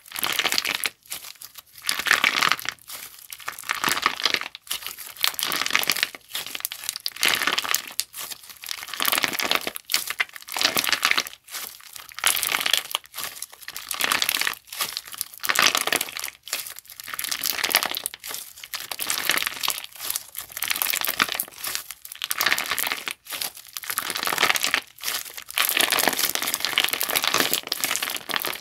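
A crunchy clear slime squeezed and pressed by hand, crackling and popping in repeated bursts about a second long with short pauses between them.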